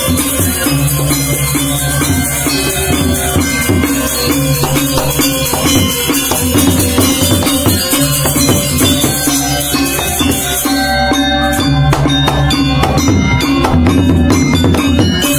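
Balinese gamelan gong ensemble playing: bronze metallophones ringing in interlocking patterns over repeating low tones, driven by a two-headed kendang drum. From about two-thirds of the way in, quick sharp metallic strokes crowd in and the music grows a little louder.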